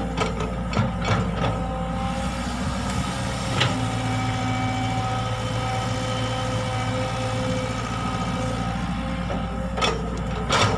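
Diesel engine of a Caterpillar E120B hydraulic excavator running steadily while it digs, its pitch shifting slightly about three and a half seconds in. A few metallic knocks and clanks from the working arm and bucket, several near the start and a cluster near the end.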